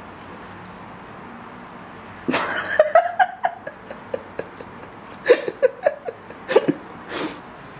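A cat making a quick run of short, high-pitched calls mixed with clicks, starting about two seconds in, as it paws at and bites a foxtail grass stem.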